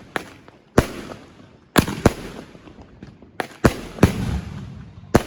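Fireworks going off: about eight sharp bangs at irregular intervals, some in quick pairs, each trailing off in a rumbling echo.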